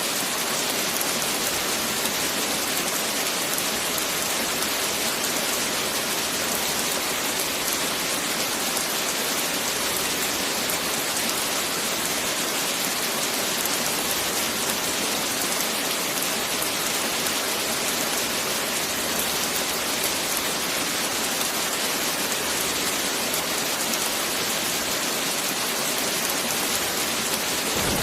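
Steady heavy rain falling, an even hiss of drops with no thunder.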